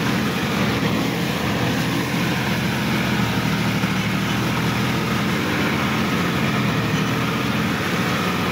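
Sonalika DI-50 RX Supreme tractor's diesel engine running steadily under load, heard from the driver's seat close to the exhaust stack, as the tractor works through a flooded, muddy paddy field.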